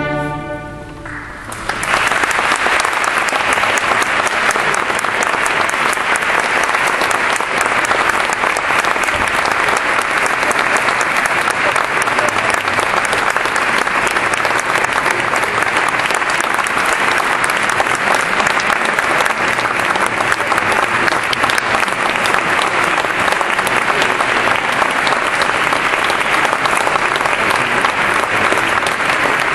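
The last chord of the choir and string orchestra dies away, then the audience breaks into steady applause about a second and a half in.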